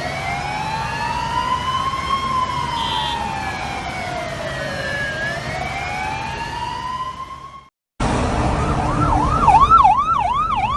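Emergency vehicle sirens. First a slow wail rises and falls over several seconds, then fades away. After a sudden cut, fire engine sirens sound in a fast yelp of about three sweeps a second, over a low engine rumble.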